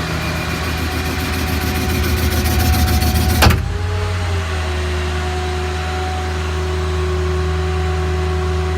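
Hydraulic crane on a Ford F-550 service truck working off the truck's 6.0 diesel, with a rattling whine. About three and a half seconds in comes a sharp clunk, after which the rattle stops and only a steady running hum remains.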